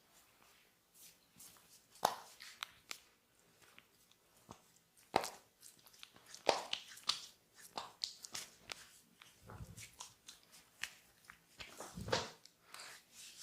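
Close-miked massage sounds: hands rubbing and scratching on hair and skin, giving irregular crisp crackles and clicks, with two dull thuds in the second half.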